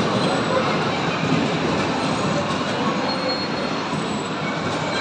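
Electric bumper cars running around the rink floor: a steady rolling rumble and clatter, with a faint high squeal now and then.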